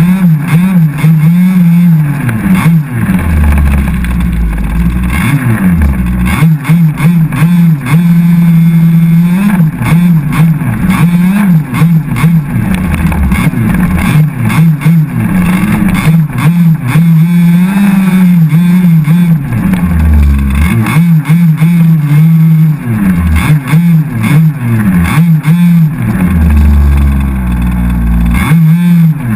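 Two-stroke petrol engine of an HPI Baja 5SC 1/5-scale RC truck, heard from on board and run hard: it revs up and down over and over as the throttle is worked. Bursts of low rumble come and go several times.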